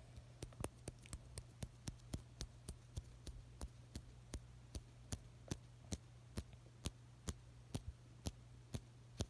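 A long run of faint, sharp clicks or taps, about four a second at first and slowing to about two a second, over a low steady hum.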